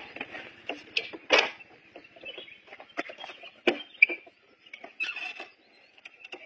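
Scattered knocks, clicks and rustling as a passenger climbs onto a parked, heavily loaded motorcycle whose engine is not running, with faint bird chirps.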